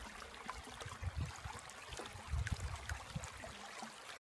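A creek's water running steadily, with scattered small ticks and dull low bumps now and then, the strongest about two and a half seconds in.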